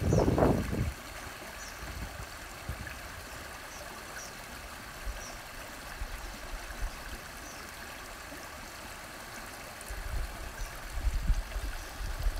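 Shallow creek flowing with a steady, gentle rush of water, with faint high bird chirps now and then. A loud low rumble lasts under a second at the very start, and more low rumbling builds near the end.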